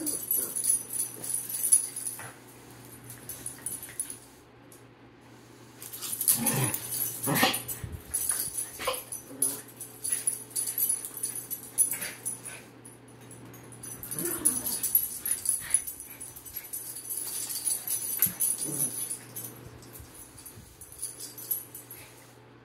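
Small dogs wrestling in play, with short vocal sounds from the dogs and bursts of high jingling, most likely their collar tags. It comes in three lively bouts with quieter spells between them.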